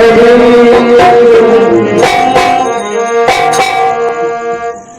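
Instrumental interlude of a Rajasthani bhajan: held melody notes over drum strikes, with no singing.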